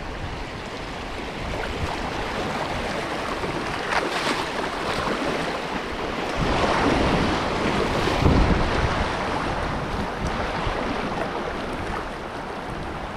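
Wind buffeting the microphone over rushing river water, rising and falling in gusts, loudest around the middle.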